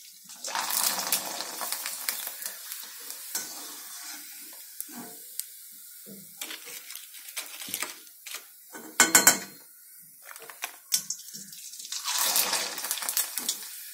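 Rice papad sizzling in hot oil in an iron karahi as it is fried and puffs up, the hiss rising about half a second in and again near the end. A perforated steel spoon clicks against the wok throughout, with one loud clatter a little past the middle.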